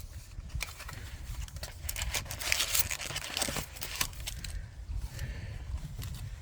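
Food packaging being handled and torn open: irregular crinkling and rustling, with a louder stretch of tearing about two and a half seconds in, over a low rumble.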